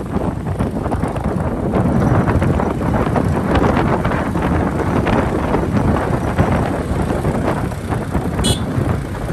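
Wind rushing over the microphone of a moving motorcycle, with its engine running underneath. A brief high chirp near the end.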